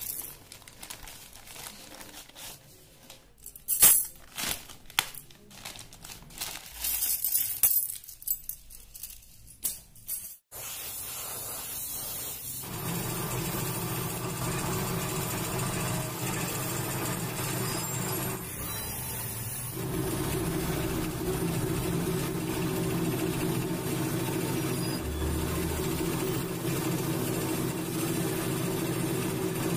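Plastic parts packets rustling and small steel bolts clinking together as they are tipped out. About twelve seconds in, this gives way to a steady mechanical hum with a hiss: a paint spray gun and its air compressor spraying motorcycle engine castings.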